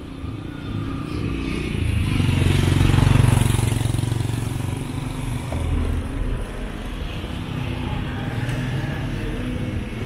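A motor vehicle driving past on the road, its engine and tyre noise swelling to a peak about three seconds in and then fading into a steady rumble of traffic.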